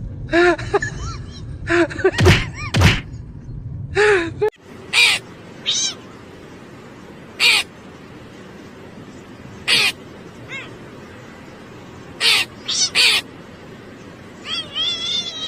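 Short animal calls, repeated every second or two; the sound changes abruptly about four and a half seconds in, after which the calls come as separate brief cries over a steady hiss.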